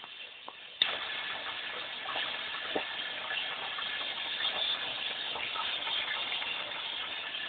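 Popcorn machine kettle running: a steady hiss with many small crackles that starts abruptly with a click about a second in.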